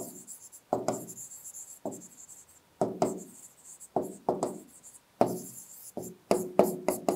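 Stylus tapping and scraping across an interactive display board as words are handwritten: a run of short knocks and scratches, roughly two a second.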